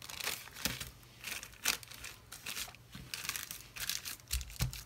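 Thin clear plastic bag crinkling in a run of irregular crackles as it is handled, folded and pressed flat by hand.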